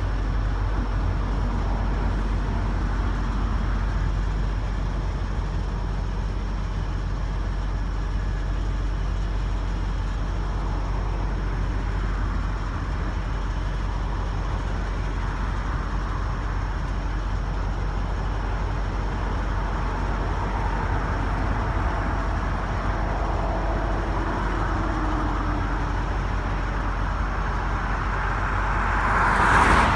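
A car passes by the camera along the road, its tyre and engine noise building to a short loud swell near the end and falling away. Before that there is a steady low rumble.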